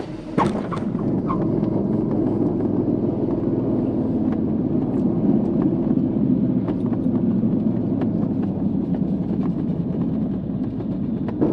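ASW 27 glider rolling out along the runway on its wheel: a steady rumble and rattle carried through the fuselage, with small ticks throughout. There is a sharp knock about half a second in, and another near the end.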